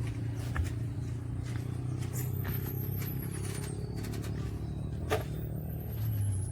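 Engine of a homemade rice-field sprayer running steadily with a low hum, with a couple of short clicks.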